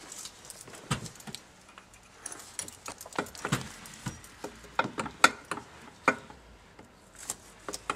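Irregular light metallic clicks and taps as the shifter parts and shift rail of an NV3500 manual transmission are worked by hand on the open case.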